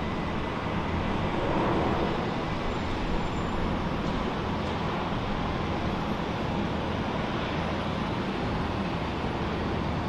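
Jet airliner engines running as a steady rushing rumble, swelling slightly between one and two seconds in.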